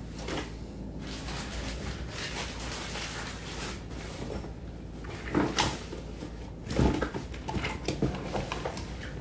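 A few short knocks and rattles, with the louder ones about five and a half and seven seconds in, over a low steady hum.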